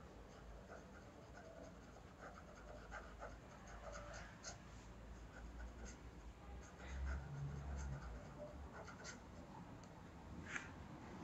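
The 1.1 stub nib of a Leonardo Momento Zero Grande fountain pen scratches faintly across paper as words are written, with small ticks as strokes start and end. A soft low thump comes about seven seconds in.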